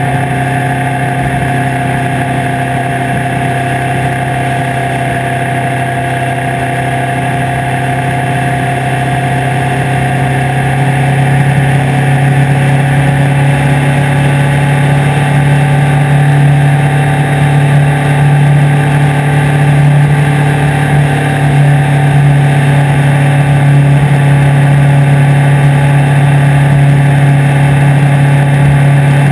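Suzuki Hayabusa's inline-four engine running steadily at cruising speed, with wind and road noise over the bike-mounted camera. The engine gets a little louder about ten seconds in.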